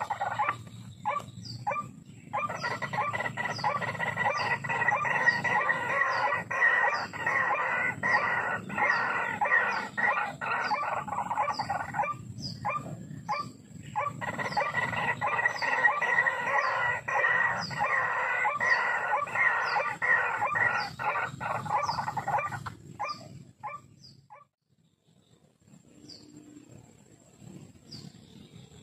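White-breasted waterhens (ruak-ruak) calling: a long run of loud, rapidly repeated notes that pauses briefly about halfway and stops a few seconds before the end. A faint high chirp repeats at a steady pace above it.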